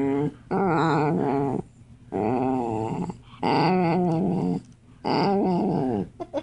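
Dog making long, drawn-out grumbling growls, about four in a row, each about a second long with a wavering pitch.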